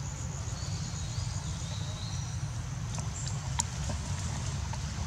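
Outdoor ambience: a steady high-pitched hum over a low rumble, with a few faint clicks a little past three seconds in.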